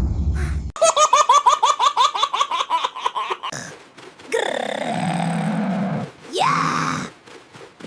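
A cartoon character's high-pitched, rapid laughter, about four ha's a second, followed by a longer low vocal sound and a short rising cry near the end.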